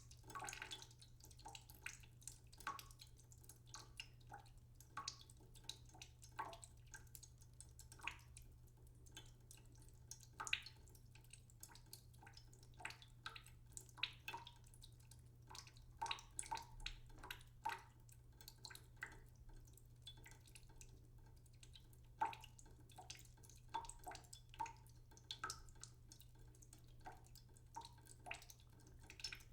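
Water dripping: small drops falling irregularly, several a second, some with a short pitched plink. A faint steady low hum runs underneath.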